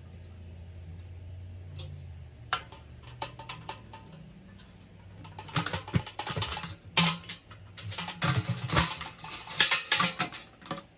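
Stainless steel pot and lid of a small home distiller being handled, with clinks and knocks of metal. A single knock comes a couple of seconds in, and the clatter turns dense over the second half.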